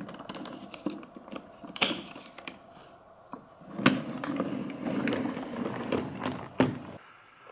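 BRIO wooden toy train pushed by hand along wooden track: the wheels roll with a low rumble, and sharp clicks and knocks sound as the wagons bump and couple together. The rolling is louder from about four seconds in, when the whole train is pushed along.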